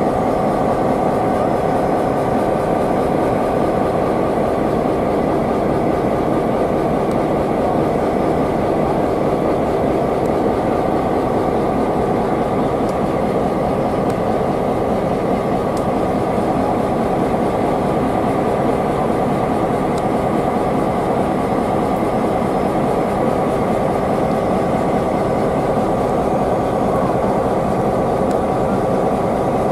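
P-class and T-class diesel-electric locomotives idling close by on a stationary train: a steady engine hum whose level and pitch do not change.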